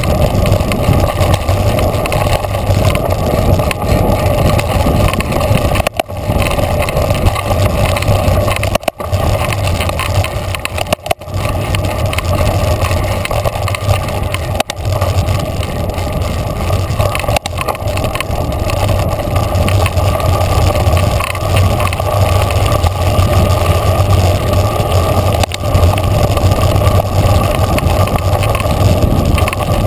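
Mountain bike being ridden fast over a dirt trail: steady tyre rumble and wind rushing over the bike-mounted camera's microphone, with a few brief dips in the noise.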